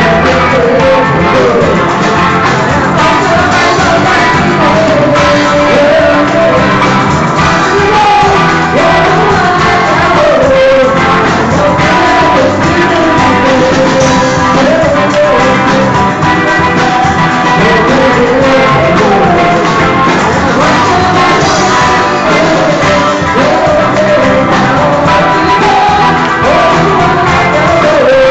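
Gospel worship band playing a rock-style song with a lead singer: guitars, bass and drums under the sung melody, steady and loud with no breaks.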